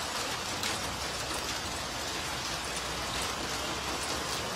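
Heavy hail falling, a dense steady clatter of hailstones on hard surfaces with scattered sharper hits.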